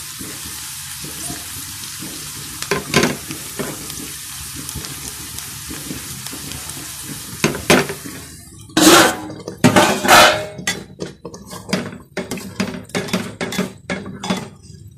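Tadka sizzling in hot mustard oil in a frying pan: cumin and hing frying with a steady hiss, with an occasional knock of a stirring spoon. From about nine seconds in, a run of loud metal clanks and scrapes of a spoon against the cookware.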